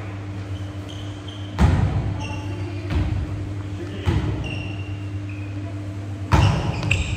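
Volleyball thudding on a wooden gym floor four times at uneven intervals, echoing in the hall, with short sneaker squeaks and a steady low hum of the gym's ventilation.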